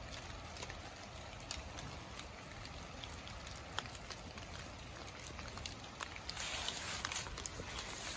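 A dog rustling through a thick layer of fallen leaves: light scattered ticks and crackles while it sniffs, then from about six seconds in a louder rustling as it walks off through the leaves.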